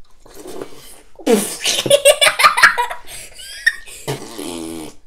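Loud laughter and vocal noises of disgust in reaction to tasting a Bean Boozled jelly bean, with one long low drawn-out vocal sound about four seconds in.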